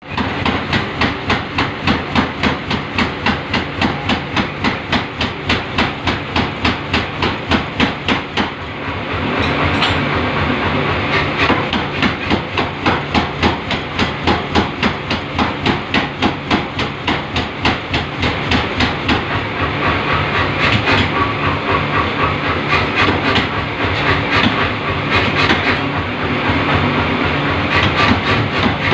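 Power hammer pounding a yellow-hot Damascus steel billet in a fast, even rhythm of about three to four blows a second, over the steady hum of the machine.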